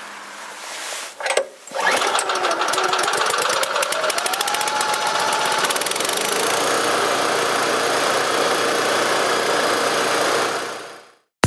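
Four-stroke petrol engine of a leaf vacuum-shredder starting up about two seconds in. Its pitch rises over a few seconds as it comes up to speed, then it runs steadily at high speed. The sound fades out near the end.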